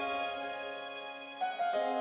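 Slow, sad background music with sustained keyboard notes; a new chord comes in about one and a half seconds in.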